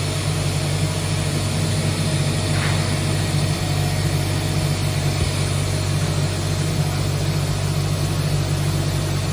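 StarragHeckert CWK 500 D horizontal machining centre running, a steady low hum over a constant hiss.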